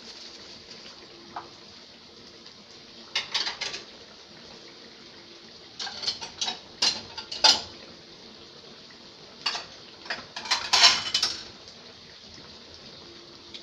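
Dishes and metal cutlery clinking and clattering in three short bouts, over a faint steady hiss.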